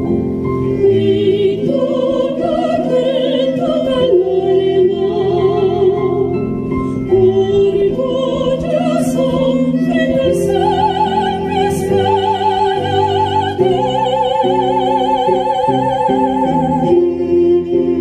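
Two sopranos singing sustained notes with wide vibrato, accompanied by a keyboard and a violin.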